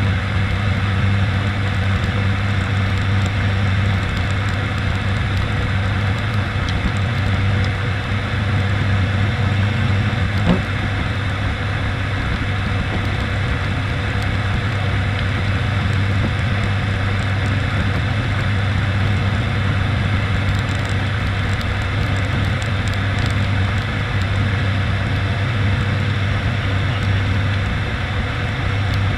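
Steady drone of the ATR 72-600's twin turboprop engines and propellers, with rushing airflow, heard inside the cockpit on approach to landing. A brief short sound comes about ten seconds in.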